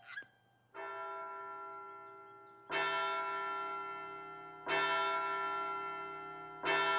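Large bell tolling four times, about two seconds apart, each stroke ringing on and slowly fading before the next; it is striking the hour as a sign that time is up.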